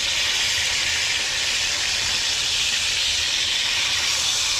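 Eggplant frying in hot cooking oil: a steady, loud sizzle.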